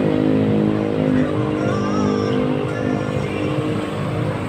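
Street traffic: motorcycle and car engines running as they pass. A nearby engine's steady drone fades out about a second in.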